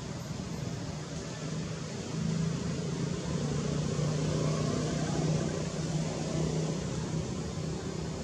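A low, steady engine hum that grows louder about two seconds in and eases off near the end, over a steady noise.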